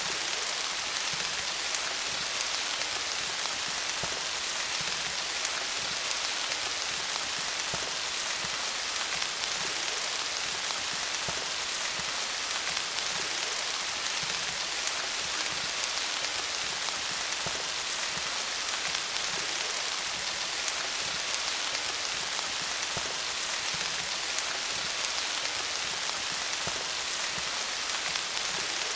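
Steady rain falling on leaves: a dense, even patter of countless drops, hissing with fine individual drop ticks.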